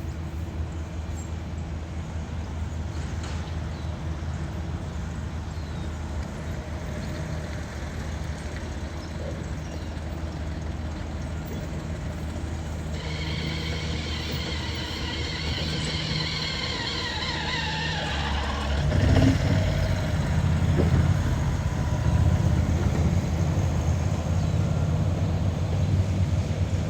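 Motor vehicle engine running with a steady low rumble. Partway through, a high whine slides slowly down over several seconds, and the rumble then grows louder.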